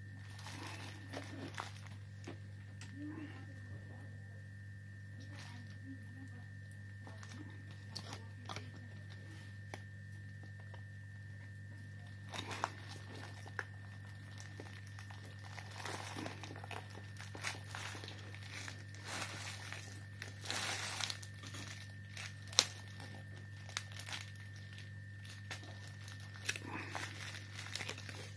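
Clear plastic packaging film and bubble wrap crinkling and crackling in irregular bursts as they are handled and pulled off a phone, with one sharp click about three-quarters of the way through, over a steady electrical hum.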